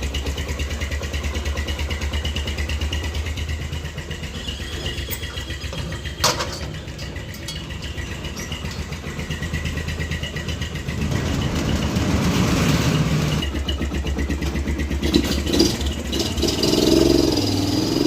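Yamaha XTZ single-cylinder four-stroke motorcycle engine running just after a cold start, with its air filter removed and a washer fitted in the exhaust. It idles with an even rapid pulse, a sharp click about six seconds in, and gets louder and busier from about eleven seconds in.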